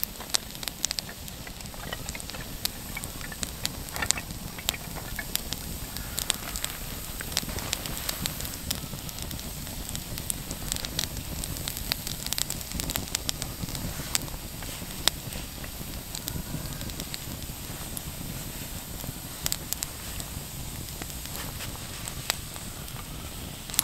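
A young wood fire of feather-stick shavings and split kindling crackling, with frequent sharp, irregular pops and ticks as it catches.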